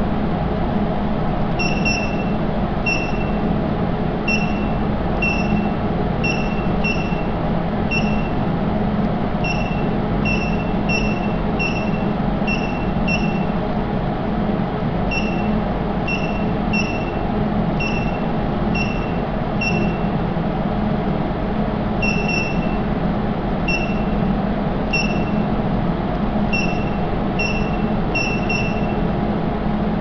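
Samkoon touchscreen control panel beeping once for each key press as numbers are entered on its keypad: short, high beeps at an irregular pace, now and then two or three in quick succession. A steady hum runs underneath.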